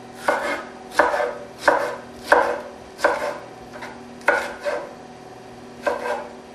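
Chef's knife slicing an orange bell pepper into strips on a wooden cutting board, each cut ending in a sharp knock of the blade on the board, about every two-thirds of a second, with a short pause near the end.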